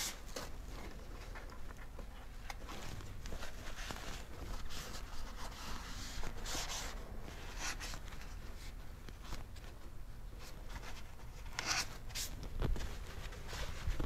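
Paper towel rustling and rubbing against the car's door-jamb trim as excess protectant is wiped off, in soft, scattered strokes with a few louder rustles in the middle and near the end.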